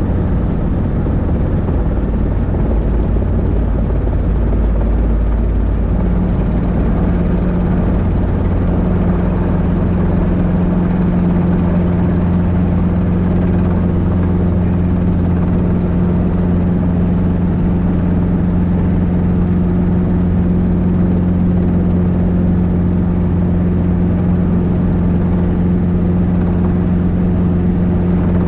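Helicopter running steadily, a continuous low rotor and engine drone. A steady hum within it grows stronger about six seconds in.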